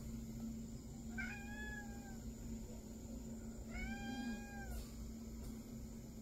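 A domestic cat meowing twice, each meow about a second long and rising then falling slightly in pitch, the second coming about two and a half seconds after the first.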